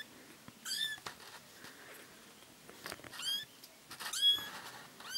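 A tiny kitten of about two and a half weeks giving short high-pitched mews, four of them, each rising and then holding, while it plays with a hand. Faint clicks can be heard between them.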